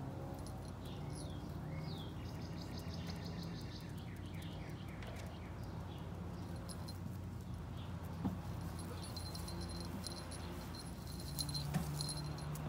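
Outdoor background with birds chirping in quick falling notes during the first few seconds and a high, insect-like pulsing later on, over a low steady hum. A couple of short knocks come near the end.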